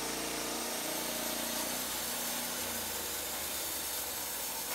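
Norwood LumberMate LM29 portable band sawmill running steadily, its band blade cutting through a log.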